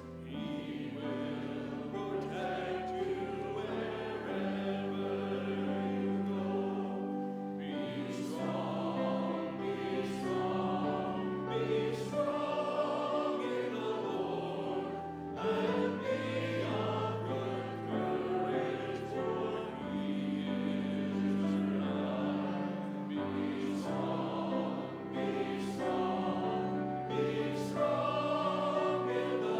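Church congregation singing a hymn together with instrumental accompaniment, with long held notes underneath the voices.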